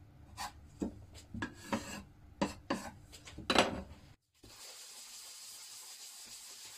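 Wooden boards handled and set down on a workbench top, a few sharp knocks, then after a short break a steady hiss of a sanding block rubbed along a wooden board.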